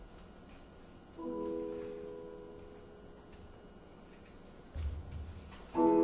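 Soft incidental music from a mallet percussion instrument: a chord is struck about a second in and rings, slowly fading, and a second, louder chord is struck near the end, with a few low thuds just before it.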